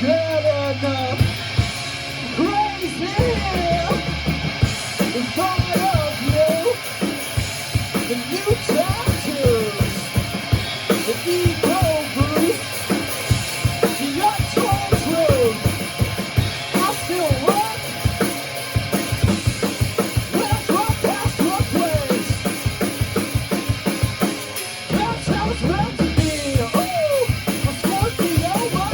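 A rock band playing an instrumental passage: a drum kit keeps a busy beat of bass drum and snare hits under a lead melody with sliding, bending notes.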